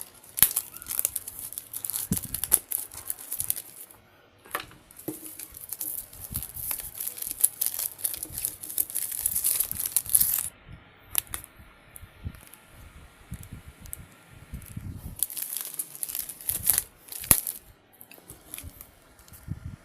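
Plastic packaging being torn and crinkled by hand while a boxed puzzle cube is opened, in several bursts of crackling with short quieter pauses.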